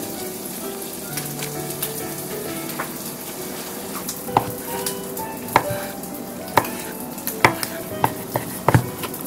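Kitchen knife cutting through a block of konjac onto a wooden cutting board: sharp, irregular knocks of the blade meeting the board. They start about four seconds in and come faster near the end, over a steady hiss.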